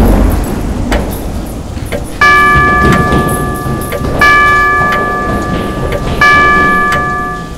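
Grandfather clock striking the hour: three deep bell chimes about two seconds apart, each ringing out slowly, as the noise of heavy rain and a thunder rumble dies away in the first second or two.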